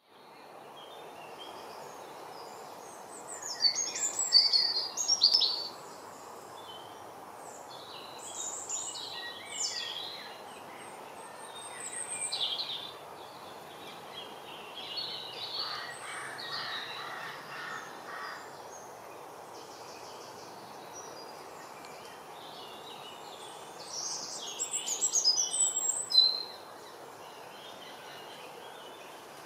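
A songbird singing in short, varied phrases, about five bursts of song with the loudest a few seconds in and again near the end, over a steady background noise.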